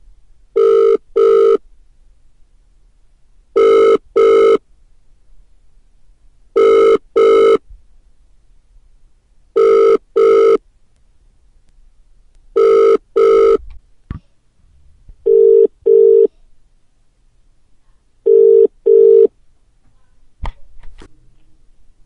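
Telephone ringing in a double-ring pattern: two short rings about every three seconds, seven times, the last two duller than the rest. A couple of sharp clicks follow near the end.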